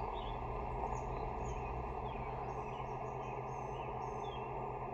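Steady hiss of HF band static from the receivers of ham radio transceivers playing through their speakers, with a low hum under it. Faint bird chirps sound now and then above it.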